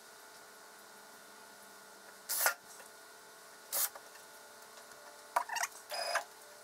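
Cordless drill driving screws through a pine board into a chipboard bed in short bursts: four brief whirs, the first about two seconds in and the loudest.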